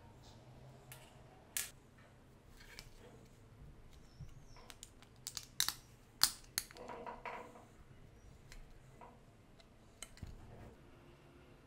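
Small handling noises of plastic parts: scattered sharp clicks and taps as a plastic gear on a metal axle and a CD are fitted together, with a quick cluster of louder clicks in the middle.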